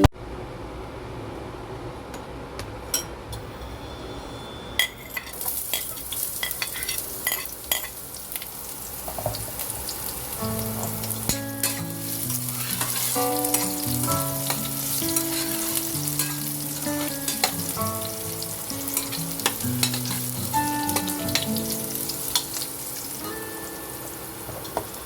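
Food frying in hot oil in a pan, sizzling, with the clicks and scrapes of stirring. The hiss grows louder about five seconds in.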